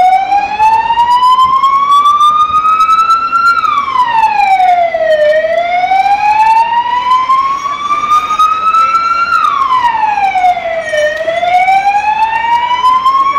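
Emergency-vehicle siren wailing loudly. Each cycle climbs slowly for about four seconds and then drops back quickly, falling twice.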